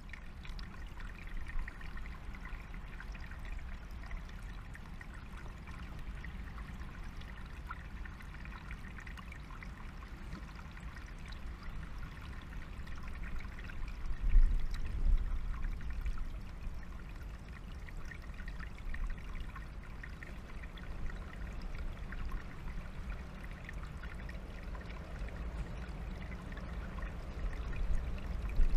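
Small forest stream trickling steadily over stones, with a low rumble that swells briefly about halfway through and again near the end.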